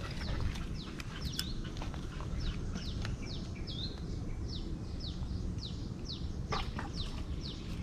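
A bird calling over and over: short high whistled notes, each sliding down in pitch, about two a second. A few sharp clicks come about six and a half seconds in.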